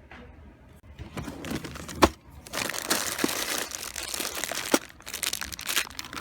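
Rustling and crinkling handling noise, louder from about two and a half seconds in, with a couple of sharp knocks.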